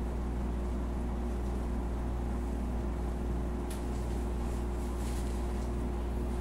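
Steady low mechanical hum of a running room appliance, with one faint tick a little past halfway.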